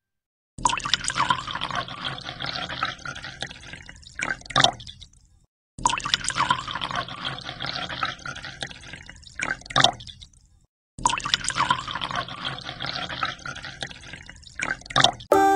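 Water pouring into a glass aquarium, splashing and churning into the rising water as the tank fills. It comes in three stretches of about five seconds, each starting suddenly and fading out.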